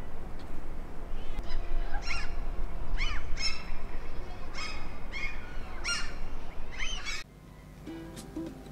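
A bird calling repeatedly, about eight short sweeping calls roughly one a second, over a steady low outdoor rumble. The outdoor sound cuts off abruptly near the end, and faint music begins.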